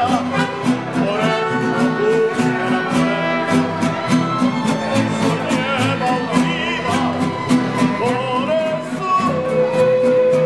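Live mariachi band playing an instrumental passage between sung verses. Violins play with vibrato over the steady strumming of guitars and a guitarrón bass. A long held note comes in about nine seconds in.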